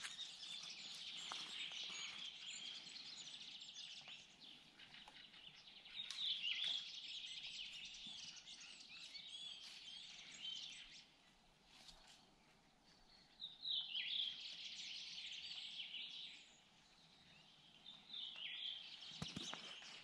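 Wild songbirds singing in a spring forest: high song phrases a few seconds long, repeated with short quieter gaps between.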